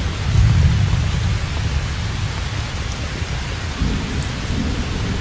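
Heavy downpour of rain, a steady hiss, with a deep low rumble underneath that is strongest in the first second and eases a little near the end.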